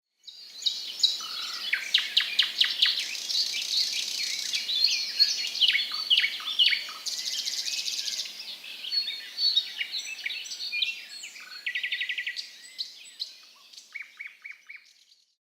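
Several songbirds singing together: a dense chorus of overlapping chirps, trills and quick rattling notes that thins out and fades away near the end.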